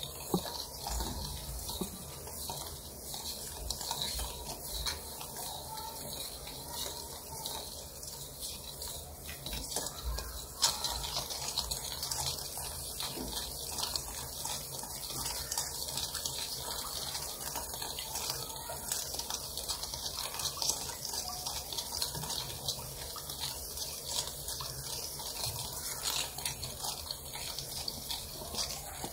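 Steel spoon stirring sugar and water in a stainless steel bowl, scraping and clinking irregularly against the bowl with the liquid swishing, as the sugar is dissolved into syrup.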